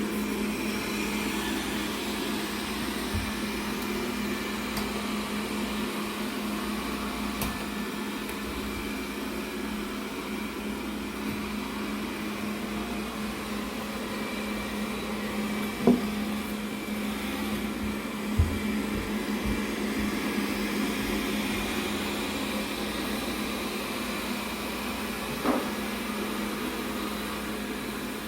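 Robot vacuum cleaner running with a steady hum, with a few brief knocks along the way.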